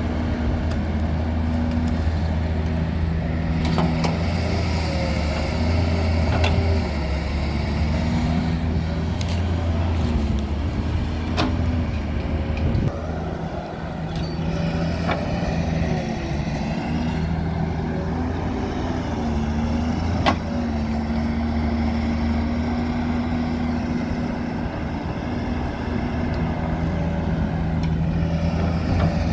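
Diesel engine of an earthmoving machine working hard while loading mud, its speed rising and falling under hydraulic load. A few sharp metallic clanks break through.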